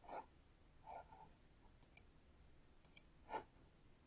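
Computer mouse clicking faintly: two quick double clicks about a second apart, with a few softer knocks in between.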